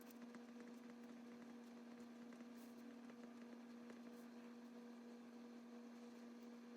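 Near silence with a faint steady hum, a low tone with a weaker higher one above it.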